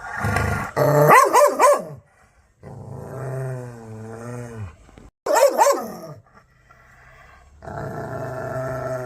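A dog growling and barking: a quick run of about four sharp barks about a second in, a long wavering growl, two more barks just past the middle, then growling again near the end.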